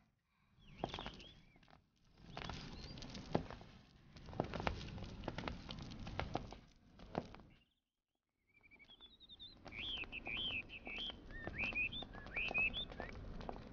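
Soft footsteps and rustling of clothing as a group walks, with scattered light ticks. After a brief break, small birds chirp several times over more footsteps and rustling.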